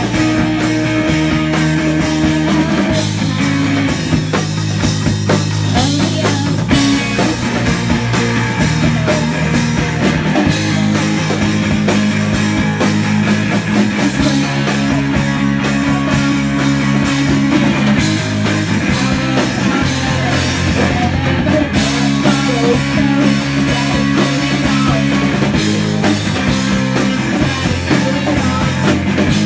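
Live band playing a song on electric guitar, electric bass and drum kit.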